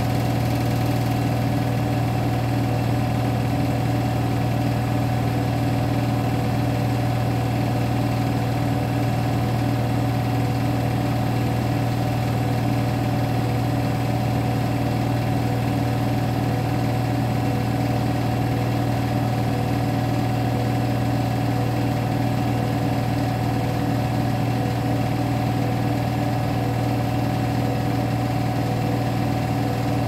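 Beko WTK104121W front-loading washing machine on its 1200 rpm final spin, the drum spinning at a constant high speed with a steady motor hum and whir.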